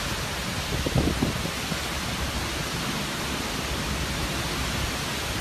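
Heavy wind-driven rain from a hurricane's outer rain band: a steady rushing hiss, with gusts of wind buffeting the microphone, the strongest about a second in.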